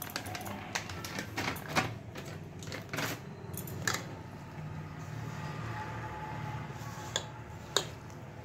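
Plastic bag crinkling as flour is poured from it into a steel mixing bowl, then a hand working the flour into shredded cabbage. Irregular sharp rustles and taps, the loudest a few single clicks around two, three and eight seconds in.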